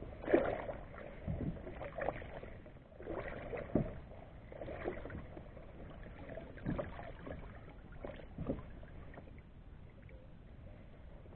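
A rope stringer of rockfish is dipped into the sea and lifted out beside a kayak: scattered soft knocks and splashes, with water dripping off the fish. The sounds thin out near the end.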